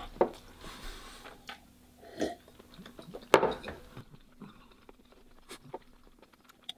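A man's short breaths and mouth sounds, a few seconds apart with quiet between, the loudest about three and a half seconds in, as he recovers from the burn of very spicy fire noodles.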